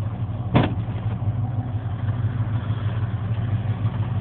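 1980 Ford F-100's 302 V8 idling steadily while it warms up, heard from inside the cab. A single sharp click about half a second in.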